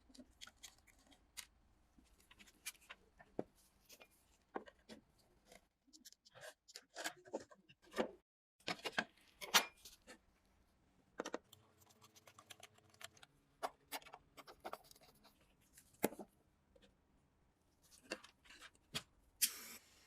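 Irregular small clicks, taps and scraping strokes of hand tools working on an old harmonium, with short pauses between bursts of activity.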